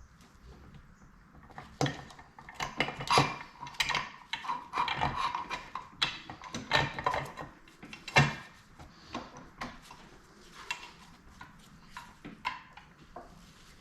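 Metal engine parts and hand tools clinking, knocking and scraping irregularly as the crankcase halves and crankcase bolts of a Yamaha YZ125 two-stroke engine are handled and fitted, with a sharp knock about eight seconds in.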